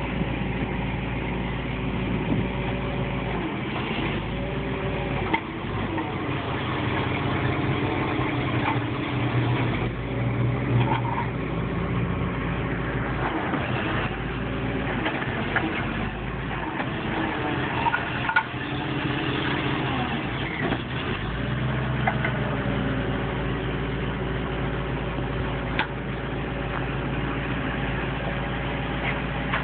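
Tow truck engine running, speeding up and slowing down several times, with a few short sharp knocks.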